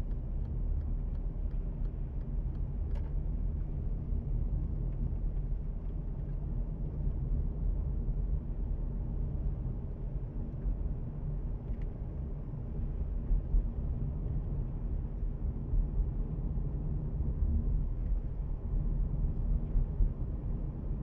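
Steady low rumble of a car's engine and tyres heard from inside the cabin, cruising in third gear at about 30 to 40 km/h.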